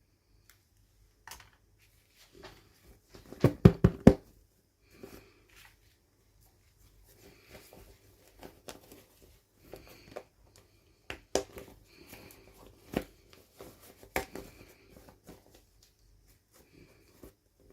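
Hands unboxing small toys: packaging crinkling and tearing, with sharp taps and clicks of small hard pieces. A quick run of four or five louder knocks comes about three to four seconds in.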